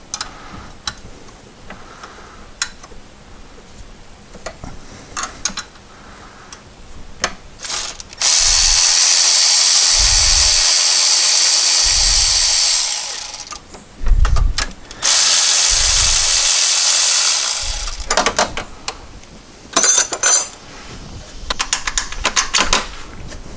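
Cordless power ratchet spinning out the 13 mm bolts of an oil filter housing. It runs with a steady high whine in two long runs of about five and three seconds, with short bursts between and after. Light tool clicks come first.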